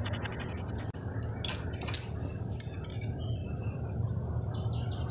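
Scattered light metallic clinks and taps of a spanner working on the kick-start lever bolt of a motorcycle engine, over a steady low hum.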